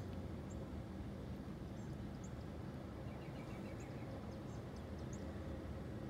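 Steady low outdoor background rumble with a few faint, scattered bird chirps, including a quick run of chirps about three seconds in.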